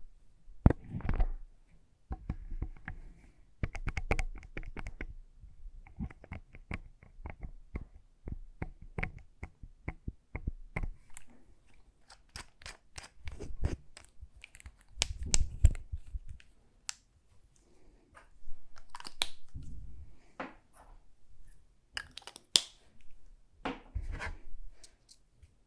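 Close-miked ASMR lip balm sounds: a long string of small sharp clicks and taps, some in quick runs, mixed with moist mouth sounds.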